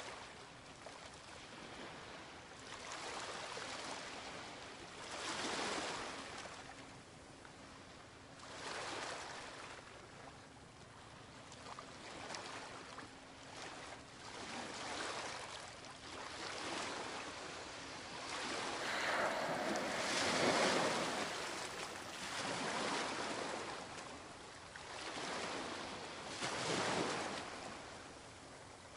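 Sea water washing and splashing in swells that rise and fade every two to three seconds, the loudest surge about two-thirds of the way through.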